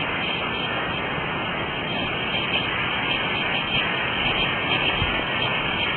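Steady, even rush of a fast-flowing creek and river, a continuous water noise with no breaks.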